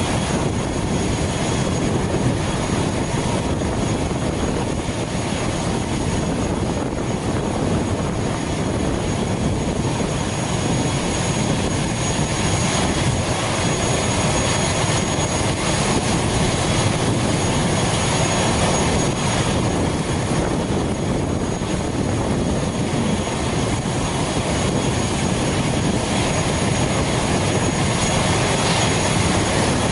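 An ATR 72 turboprop's Pratt & Whitney PW127 engine running steadily while the aircraft stands parked for boarding: a constant low rumble with a thin high turbine whistle on top. The propeller in view stands still, which fits the engine being run in hotel mode with its propeller braked.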